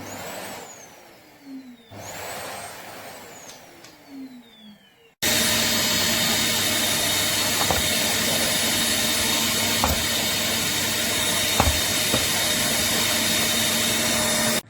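Akitas 800W bagless cylinder vacuum cleaner motor whining up quickly and then winding down, twice. It then runs steadily at full power with a few light knocks and cuts off suddenly near the end.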